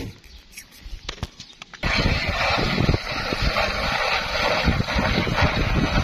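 A cow being hand-milked, with squirts of milk hissing into a plastic bucket over loud, steady outdoor noise. The noise starts abruptly about two seconds in, after a quieter stretch of faint clicks.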